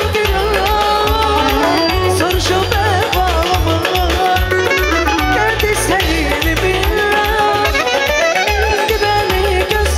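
Azerbaijani wedding dance music from a live band: an ornamented, wavering melody over a heavy, steady bass beat.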